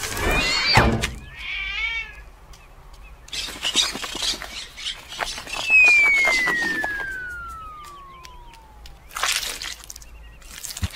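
A clatter and crash near the start, then a single descending whistle that slides steadily down in pitch over about three seconds, the cartoon sound effect of something falling from a height, ending in a sharp splat-like hit.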